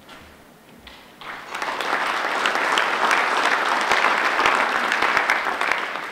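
Audience applauding, starting about a second in, building quickly to a steady clapping and dying down near the end.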